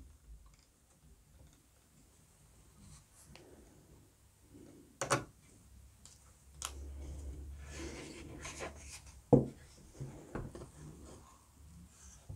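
Hands handling and fitting small laser-cut wooden parts on a model ship hull: a few sharp wooden clicks about five and six and a half seconds in, rubbing and shuffling after that, and a louder knock about nine seconds in.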